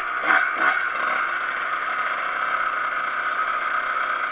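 Kawasaki KX125 single-cylinder two-stroke dirt bike engine running while the bike is ridden along a dirt trail, with two quick rev blips about half a second in.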